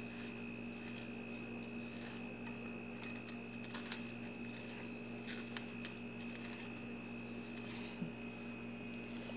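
Faint crackling and crunching of crisp, dry-roasted red chillies and salt being crushed by a plastic-gloved hand on a plate, in scattered brief bursts over a steady background hum.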